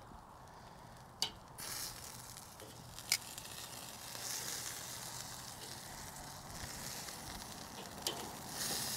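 Marinated chicken wings sizzling on a hot charcoal kettle grill grate as they are turned over with metal tongs. A few sharp clicks of the tongs on the grate come about a second in, about three seconds in and near the end, and the sizzle swells as wings are laid back down.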